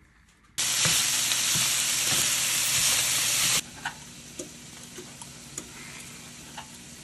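Ground meat sizzling in a frying pan: a loud, even hiss for about three seconds that cuts off abruptly, then a quieter sizzle with a few light clicks.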